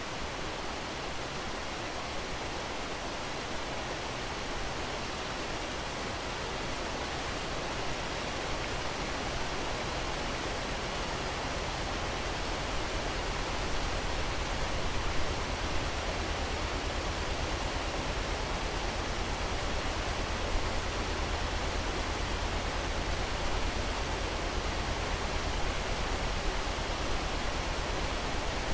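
Steady rush of water pouring through a badly leaking canal lock. Underneath it a narrowboat's engine runs with a low rumble that grows louder from about halfway through as the boat draws in towards the lock.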